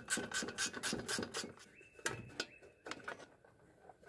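Sheet shroud of a Briggs & Stratton Vanguard V-twin being worked loose and lifted off the engine: a run of irregular scraping, rubbing and clicking that thins out and goes quiet near the end.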